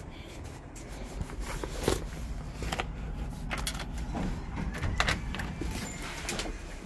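Handling noise from a cardboard box of dog treats being carried and jostled: scattered knocks and clicks over a low rumble, the loudest knock about two seconds in and another about five seconds in.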